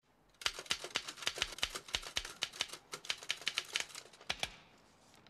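Manual typewriter being typed on: a quick, uneven run of key strikes that starts about half a second in and stops a little after four seconds.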